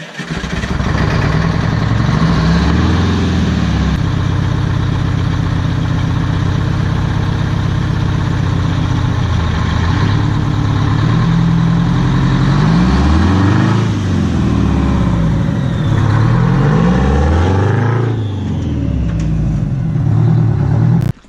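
Detroit Diesel 8V92 two-stroke V8 diesel running at a steady speed, then revved up and down several times in the second half, cutting off abruptly at the end.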